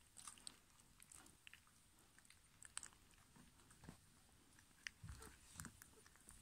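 Faint, irregular soft clicks and smacks from German pinscher puppies mouthing and play-biting each other, with a soft low bump about five seconds in.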